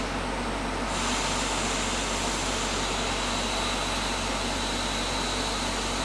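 Hot air rework station blowing a steady hiss with a thin high whine, reflowing pre-tinned pads to solder a resistor in place. The whine drops out for about a second near the start, then returns.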